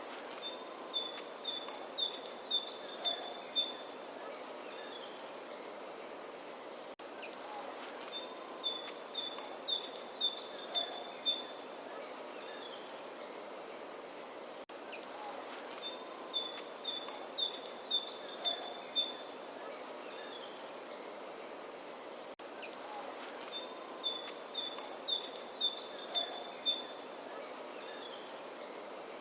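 A songbird singing the same phrase over and over, about every seven and a half seconds: a high falling note, then a quick run of short repeated notes at two slightly different pitches. A faint steady outdoor hiss lies underneath.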